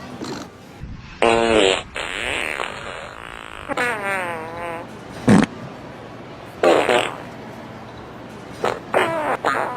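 A series of about five short fart sounds, separated by pauses, several with a wavering, buzzing pitch and one short low one near the middle.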